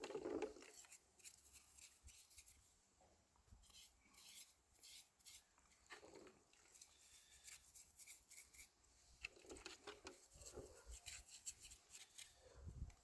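Faint scattered clicks and light rubbing as a small metal fuel pump is handled, with a few soft knocks.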